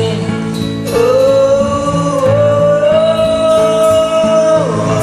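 A man singing one long held note that steps up slightly partway through and falls away near the end, over a karaoke backing track with guitar.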